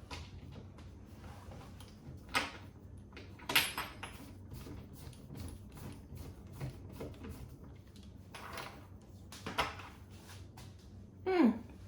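Scattered knocks and rattles of rail fittings and hardware being handled during fitting, about four separate bumps. Near the end there is a short voice sound that falls in pitch.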